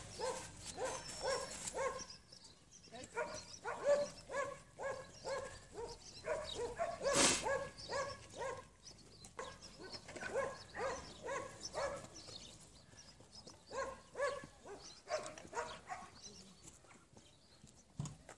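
A dog barking over and over in runs of short barks with pauses between them, and a brief handling noise about seven seconds in.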